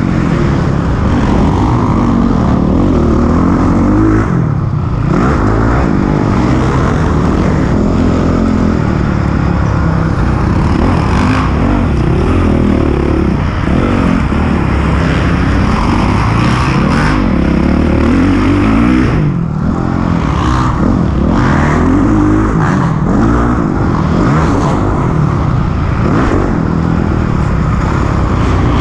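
Honda CRF450R's single-cylinder four-stroke engine revving up and down as the dirt bike is ridden around a motocross track, heard close up from the bike itself. The engine note rises and falls with each run of throttle, and it briefly drops off twice, about four seconds in and again near twenty seconds.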